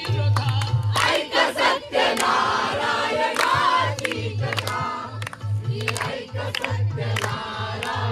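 A group of people singing together and clapping along, over music with a steady low beat.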